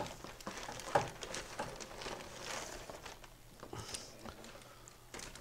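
Quiet rustling of a plastic mailer bag and a cardboard box being slid out of it, with scattered light knocks and clicks as the package is handled on the table.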